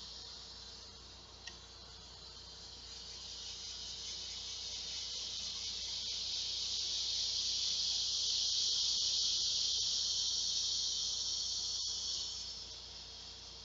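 A large male cicada calling for a mate: a high, hissing buzz that swells over several seconds, holds, then fades away near the end. It is still well below the full loudness the call can reach.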